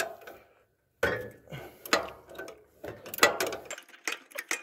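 Steel wrenches working the big adjusting nut of a Case Ingersoll EZ Adjust PTO clutch: irregular metallic clicks and knocks, starting about a second in after a brief quiet, as the nut is positioned and tightened to close up the clutch gap.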